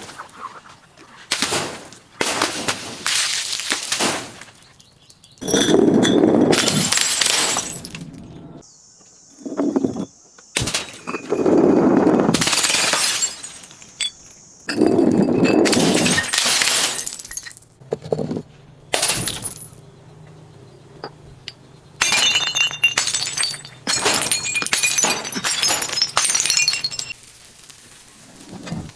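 Glass being broken and crushed in repeated bursts of shattering and crunching, most lasting a second or more, with short pauses between them.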